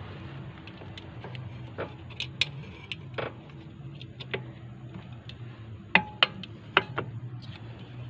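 Metal parts and hand tools clinking and knocking irregularly during brake shoe work on a tuk-tuk's drum brake, with a few sharp ringing clinks about six to seven seconds in, over a steady low hum.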